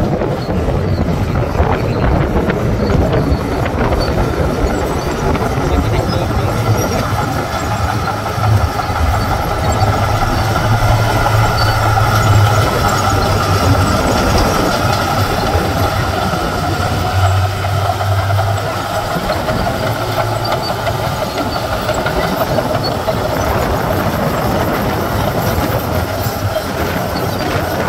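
Heavy diesel earthmoving machinery running at work: a low diesel engine drone with a wavering higher whine above it and a metallic rattle throughout. The engine note swells about ten seconds in and again a little past halfway.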